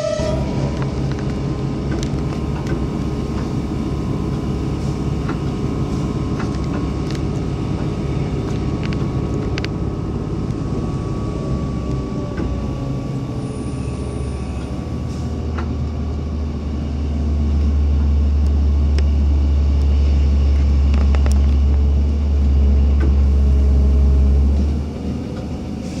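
Steady rumble of a moving vehicle heard from inside, with scattered sharp clicks and a faint steady whine. A deep low rumble swells from about halfway through, grows louder for most of the second half, and drops away just before the end.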